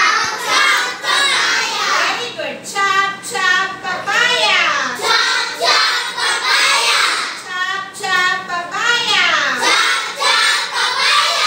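A group of children singing together, their high voices gliding up and down in a continuous song.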